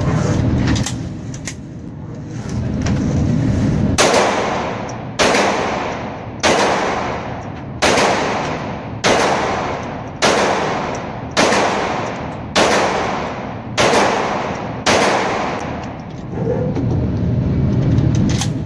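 A Sig Sauer GSG 1911 .22 LR pistol with a faux suppressor fires about ten single shots, a little over a second apart. Each shot rings on with echo in the indoor range booth. A few fainter sharp cracks come in the first two seconds, and a low rumble comes before and after the string of shots.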